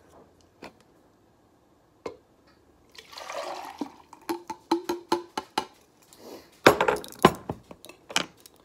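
Bone broth poured out of its package, a gush of liquid lasting about a second, followed by a run of sharp clicks and knocks from handling the containers, loudest near the end.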